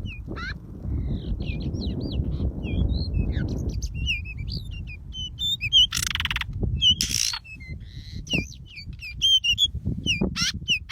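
Pied bushchat (decu) singing and calling in quick runs of short, sharply rising and falling whistled chirps, with two loud harsh bursts about six and seven seconds in. A low rumbling noise runs underneath through the first few seconds.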